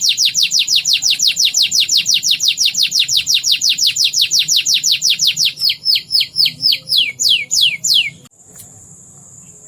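Domestic canary singing a fast trill of rapidly falling notes, about eight a second, slowing near the end into a few wider downward sweeps before it stops.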